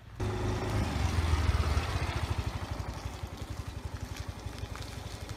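Yamaha motor scooter's engine running as it pulls away, louder for the first two seconds, then settling into a rapid, even beat.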